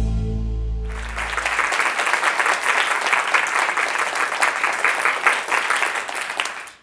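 The last held notes of an intro music sting fade out, and about a second in an audience starts applauding, a dense steady clapping that cuts off abruptly near the end.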